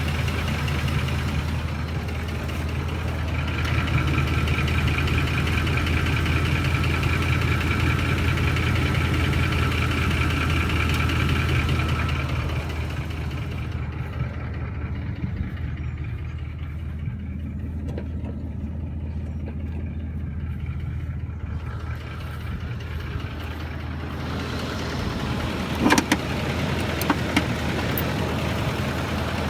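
Ford F-150's 5.4 Triton V8 idling steadily with a light knocking noise, which the owner suspects comes from worn VCT cam phasers or timing chain tensioners. Past the middle the sound turns muffled for about ten seconds, and a few sharp clicks come near the end.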